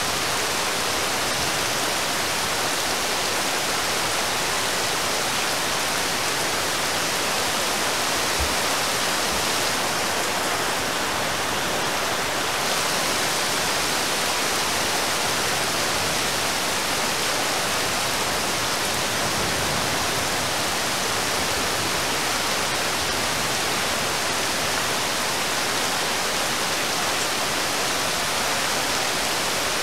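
Heavy rain falling steadily onto a river's surface, a dense even hiss that does not let up.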